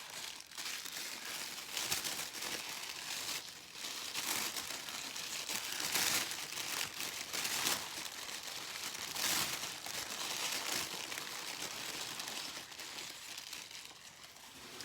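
Packaging wrap crinkling and rustling as it is handled and unwrapped by hand: a continuous crackly rustle with repeated louder crinkles, dying down near the end.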